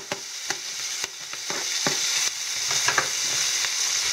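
Shrimp and minced garlic sizzling in a frying pan on maximum heat, with a string of sharp taps and scrapes as the garlic is scraped off a plastic cutting board with a knife and stirred in with a wooden spatula. The sizzle grows louder about halfway through.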